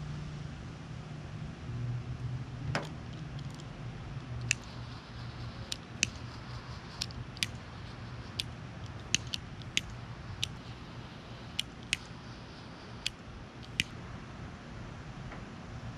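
Small hand wire tool clicking sharply and irregularly, about fifteen times, as wire ends are cut, stripped and crimped into butt connectors, over a steady low hum.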